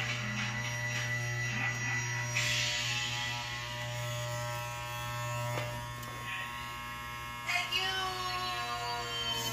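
Corded electric pet clippers running with a steady buzzing hum.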